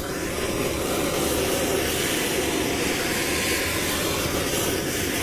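Handheld blowtorch burning with a steady hiss, its flame melting a block of frozen Coca-Cola. It comes on suddenly at the start and holds evenly.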